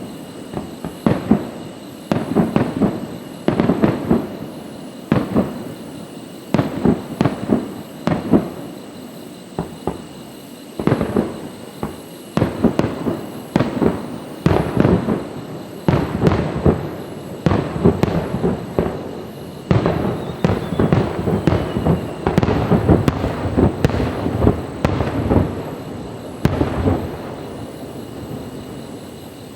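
Fireworks display: shells bursting one after another, densely packed for most of the time, then dying away near the end.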